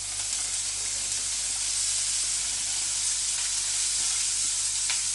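Freshly added chopped carrots and onions sizzling in hot oil in a pan: a steady frying hiss that grows louder over the first second or so, then holds.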